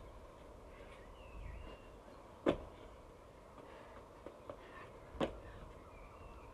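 Sharp thuds of trainers landing on block paving as a teenager does jumps: two loud landings a few seconds apart, with a couple of faint knocks between them.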